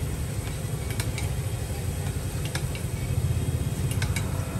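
A steady low rumble, with a few light sharp clicks of a thin stick tapping a steel worktable as it presses cut cakoi dough strips.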